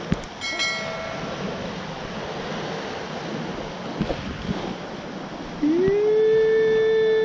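Sea surf washing over the rocks, a steady rushing. Just after the start come a couple of sharp clicks and a brief chime, the subscribe-button effect. About six seconds in, a loud held tone slides up and then holds steady, with the level jumping.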